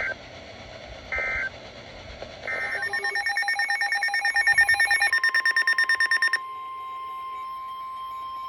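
Emergency Alert System digital data bursts: short buzzy screeches, the end-of-message signal of a warning. Then fast pulsed electronic alarm beeping, and from about five seconds in a steady single-pitch warning tone, the NOAA Weather Radio 1050 Hz alert tone.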